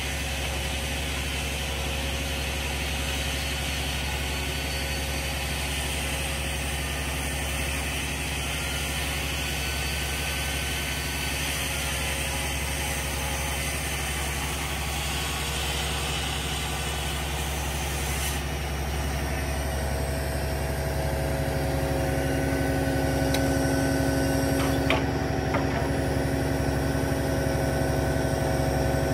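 Crane truck's engine running steadily, driving the hydraulic boom as it lowers a concrete septic tank. About twenty seconds in, the sound grows a little louder as a further steady hum joins in.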